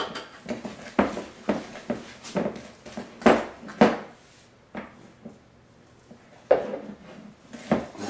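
A spoon stirring a thick creamed butter-and-sugar mixture in a mixing bowl, scraping and knocking against the bowl about twice a second. The stirring goes quiet for a couple of seconds past the middle, then starts again near the end.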